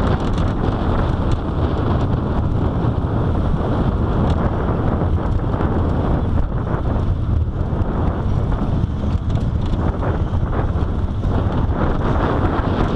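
Steady wind buffeting the microphone of a rider's sunglasses camera on a moving roller coaster, over the low rumble of the Slinky Dog Dash train running on its steel track.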